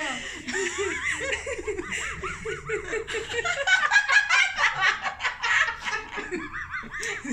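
A woman laughing in a long run of giggles lasting several seconds.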